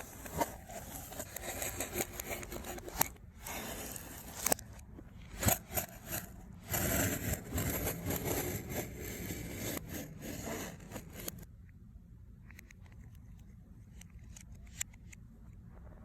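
Packaging being handled and packed up: rustling and scraping with many sharp clicks and taps. It stops about eleven seconds in, leaving only a few faint ticks.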